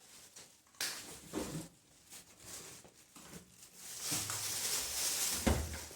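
Handling noises from work on a washing machine: a couple of sharp knocks about a second in, then a few seconds of rustling that ends in a dull thump near the end.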